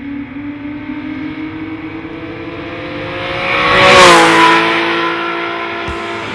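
Porsche 997 GT3 RS flat-six with a SharkWerks exhaust accelerating past, its note rising steadily in pitch. It is loudest about four seconds in as it goes by, then the pitch drops and the sound fades a little.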